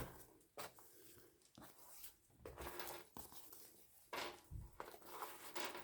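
Soft rustles and taps of paper and card as a handmade lapbook journal is opened and unfolded, several short faint sounds in a row.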